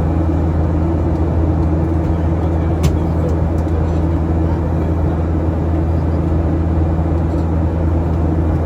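Steady low engine drone heard from inside a moving vehicle, with one sharp click about three seconds in.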